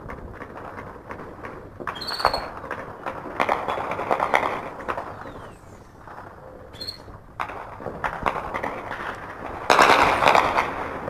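Bursts of distant automatic gunfire: four rapid crackling volleys a second or two long, the loudest near the end.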